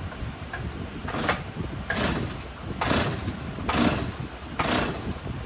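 Stihl 026 chainsaw's recoil starter cord being pulled again and again, five quick zipping pulls about a second apart.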